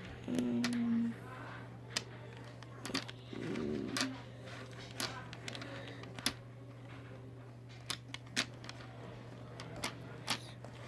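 Small magnetic balls clicking and snapping together as they are handled, an irregular run of sharp clicks, over a steady low hum.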